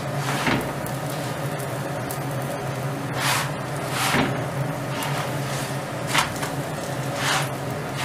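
A ghee-brushed paratha frying on a flat tawa with a steady low sizzle, and about five brief scraping swishes as a spatula pushes and turns it around the griddle. A steady low hum runs underneath.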